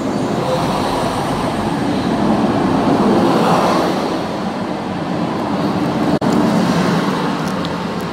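TransPennine Express Class 185 diesel multiple unit passing close by, its underfloor diesel engines running. Loudest about three seconds in, with the sound breaking off for an instant about six seconds in.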